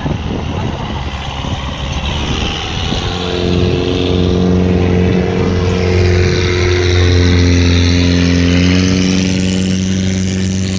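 Speedboat engine running under way, with wind and rushing water. About three seconds in its drone grows louder and settles into a steady, even pitch.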